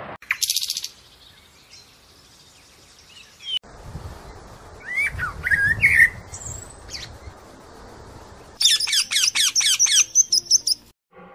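A series of bird calls: a brief high call at the start, a few short gliding calls near the middle, then a rapid run of shrill, squawking screeches near the end from a rainbow lorikeet.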